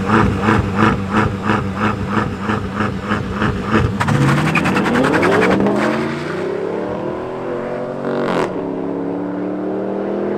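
BMW M5 F10's twin-turbo V8 held at high revs on the start line, pulsing about four times a second, then launching and accelerating hard, its pitch rising through the gears with two upshifts.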